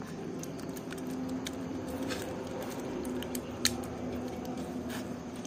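Beaten raw eggs with chopped onion squished and stirred by hand in a steel bowl: a steady wet squelching and sloshing, with scattered light clicks and one sharper click a little past the middle.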